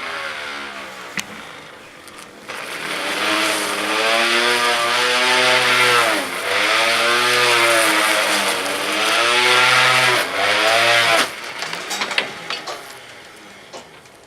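Electric string trimmer motor spinning a 3D-printed cutting blade attachment, its pitch rising and falling and dipping twice as it works, then cutting off abruptly about eleven seconds in. A few sharp clicks follow.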